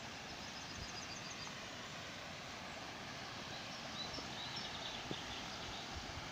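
Steady rush of a flowing stream, with faint high bird chirps in two short runs, near the start and again about halfway through.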